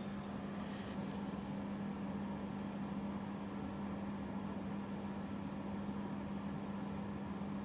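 Steady low hum with a faint even hiss, and a couple of faint ticks about a second in.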